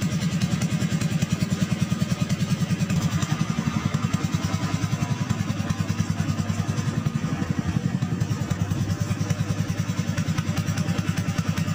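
A small engine running at a steady idle, an even rapid putter of about eight to ten beats a second.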